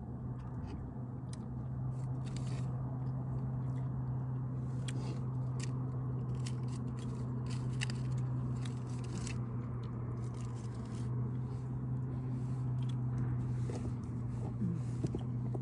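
Aluminium foil crinkling and crackling in the hands while foil-baked fish is eaten, with chewing sounds and many short, irregular crackles. A steady low hum runs underneath.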